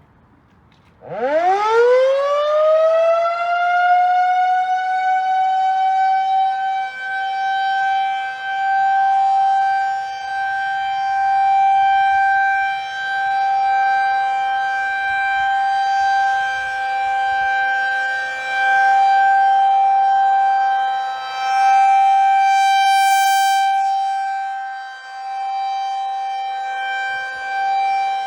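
Federal Signal 2001 outdoor tornado warning siren starting up about a second in, its pitch winding up quickly to a single steady tone. It is loud, swelling and fading every few seconds as the rotating siren head sweeps around, during a routine siren test.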